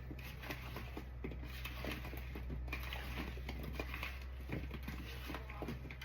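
A small spatula stirring cut potato chunks in an oil and seasoning mixture in a bowl: irregular soft clicks and scrapes, over a steady low hum.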